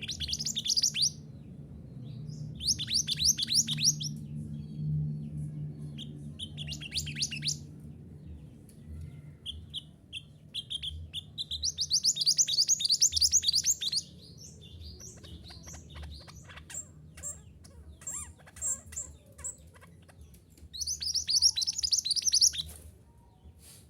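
Mantenan gunung songbird singing: five rapid, high chirping phrases of one to three seconds each, with scattered single chirps and short notes between them, over a faint steady low hum.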